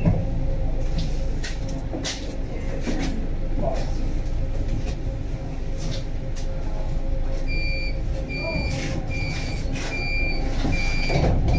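HF 11 AC tram running: a steady low rumble and hum with scattered short knocks. Past halfway, five short, evenly spaced high electronic beeps sound in a row.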